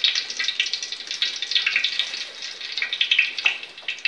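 Bay leaves sizzling and crackling in hot oil in an aluminium pot: a steady hiss full of small pops.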